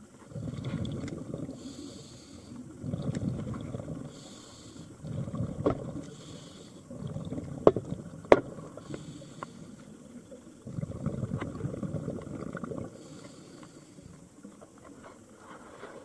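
Scuba diver breathing through a regulator underwater. Exhaled bubbles rumble out every two to three seconds, each cycle paired with a short hiss of inhaled air, and a few sharp clicks fall around the middle.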